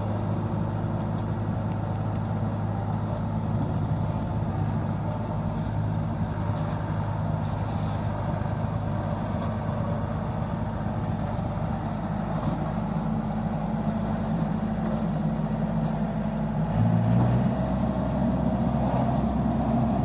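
Yanmar AW70V combine harvester's diesel engine running steadily as the tracked machine drives down loading ramps off a truck. Near the end its note changes and gets a little louder.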